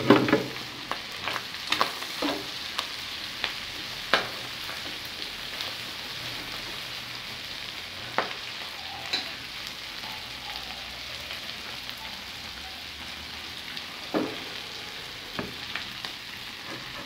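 Meat with onion, chile and cilantro frying in an enamel pot with a steady sizzle, stirred with a plastic ladle that knocks against the pot now and then, most often right at the start.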